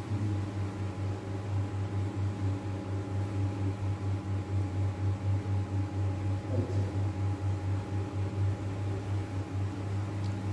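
Steady low electrical or mechanical hum with a few fainter higher tones above it, its loudness wavering slightly and regularly.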